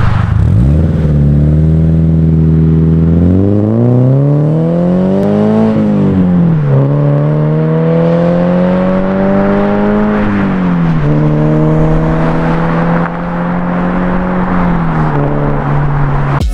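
Subaru BRZ's flat-four engine accelerating hard away from a standstill, its note climbing steadily and dropping back at each of three upshifts.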